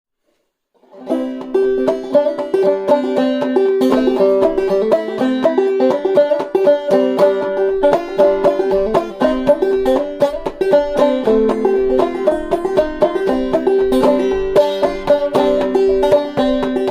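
Banjo played clawhammer style in double C tuning, strumming rhythmic chords in a steady, driving pattern; it starts about a second in.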